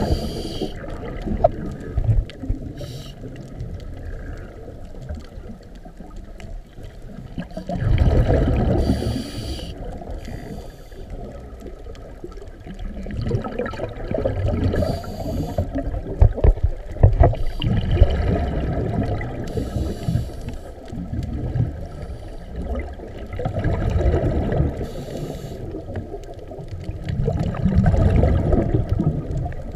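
Muffled underwater sound of scuba breathing through a regulator: a brief hiss on each inhale and a low, bubbling rush of exhaled bubbles every few seconds.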